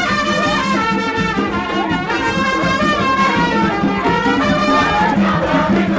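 Lively music in which several horn-like melody lines waver and overlap over a steady low tone.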